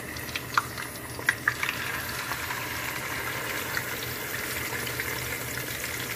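Fish frying in hot oil in a nonstick pan: a steady sizzle, with a few sharp pops and crackles in the first couple of seconds.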